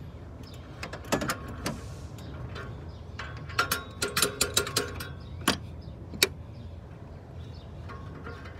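Scattered metallic clicks and knocks from hands working an oxygen sensor and its wiring into a Chevy Camaro V6 exhaust, with a quick run of clicks from about three and a half to five seconds in, over a steady low hum.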